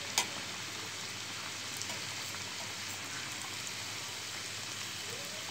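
Kajjikayalu dumplings deep-frying in well-heated oil in a steel kadai, just dropped in: a steady sizzle of bubbling oil, with one sharp click just after the start.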